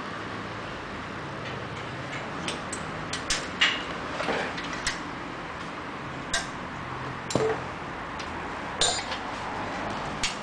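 Wrench and small metal hardware clicking and clinking at irregular intervals as a nut is tightened on the bolt holding a front fender bracket to a motorbike's front fork, over a steady background hiss.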